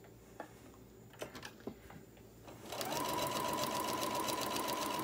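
After a few faint clicks, an electric sewing machine starts stitching about two and a half seconds in, sewing a straight seam through layered fabric and batting. It runs steadily, with an even whine and fast, regular ticking of the needle.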